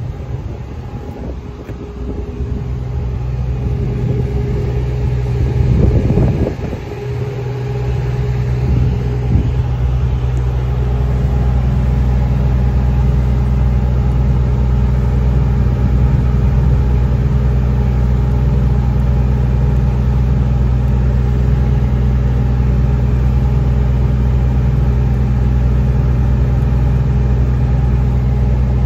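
Large diesel engine running steadily at idle, after a brief surge and dip about six seconds in.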